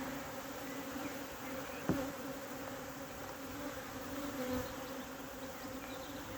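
Honeybees buzzing steadily around an opened hive, a low even hum with a higher overtone above it. A single sharp click sounds about two seconds in.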